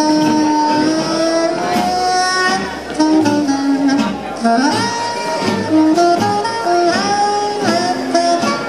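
Swing jazz music for Lindy Hop dancing, a melody of held notes with slides and bends over the band.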